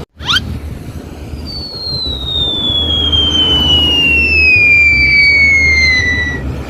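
A long high whistle sliding slowly and steadily down in pitch for about five seconds, a falling-bomb whistle sound effect, over a steady low vehicle rumble. A short rising sweep comes just before it.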